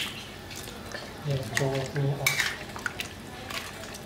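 Metal ladle stirring sliced bamboo shoots in a stainless steel pot, scraping and clinking against the pot, with several sharp clinks in the second half.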